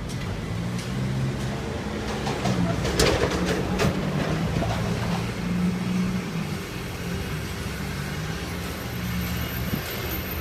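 A vehicle engine running, a low hum that wavers and breaks off now and then, with a cluster of sharp clicks about three to four seconds in.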